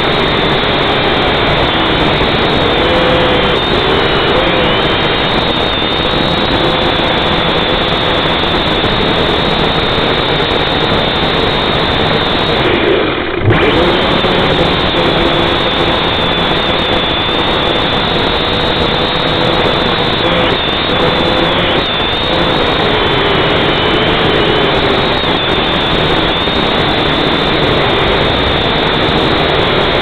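Syma X5C-1 toy quadcopter's small motors and propellers whining steadily, heard through its own onboard camera, the pitch wavering as the motors speed up and slow down. About thirteen seconds in the sound briefly drops out.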